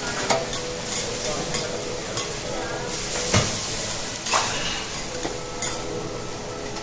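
Shredded cabbage sizzling on a hot teppanyaki steel griddle, while metal spatulas scrape and clack against the plate several times as the cabbage is gathered and tossed. The loudest clack comes about three and a half seconds in.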